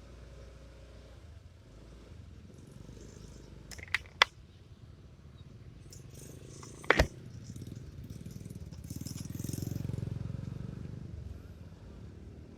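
A low steady rumble with a few sharp clicks and knocks, two close together about four seconds in and a louder one about seven seconds in. A deeper rumble swells and fades between about eight and eleven seconds.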